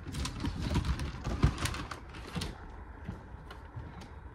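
Clicks, knocks and low thumps of a person walking with a handheld phone gimbal and passing through a doorway, a dense clatter for the first couple of seconds and then scattered clicks.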